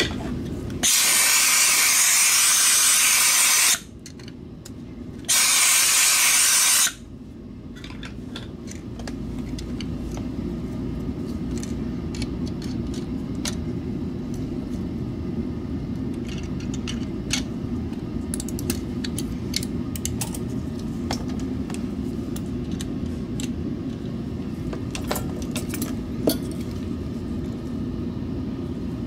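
Two blasts of compressed air hissing, the first about three seconds long and the second about a second and a half, used to blow dust out of the mouse shell. After them a steady low hum runs on, with scattered small clicks of plastic mouse parts being handled.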